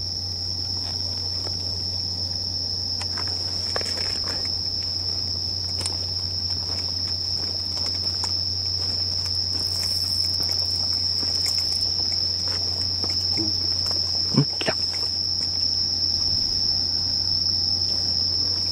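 Night insects trilling steadily at one high pitch, with a low steady hum underneath and a few faint clicks.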